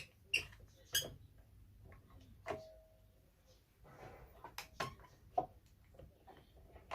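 Sharp knocks and clicks of hard objects handled and set down on a workbench, irregularly spaced. One knock about two and a half seconds in leaves a brief ringing tone, and there is a short rustle or scrape around four seconds in.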